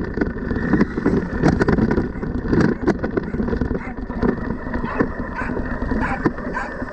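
A 4WD brushless-motor RC car (JLB Cheetah) driving over dry grass, heard from a camera mounted on the car: a steady noise of motor, tyres and shaking chassis with scattered sharp clicks and rattles, and wind on the microphone.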